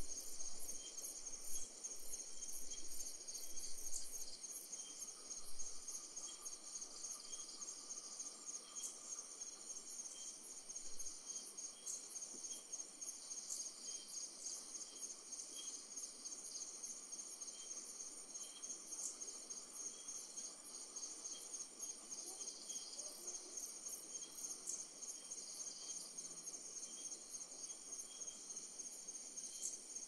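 Night chorus of crickets and other insects trilling steadily in dense, high-pitched pulses, with a fainter chirp repeating about once a second. A few soft low thumps come in the first several seconds and once more about eleven seconds in.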